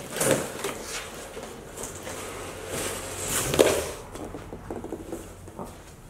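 Large cardboard shipping box being shifted, tipped up on end and laid back down on a table: cardboard scraping and knocking, with the loudest knock about three and a half seconds in.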